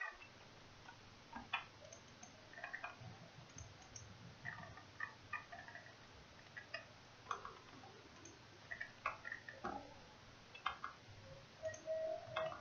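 Faint, irregular clicks of a computer mouse. A brief faint tone sounds near the end.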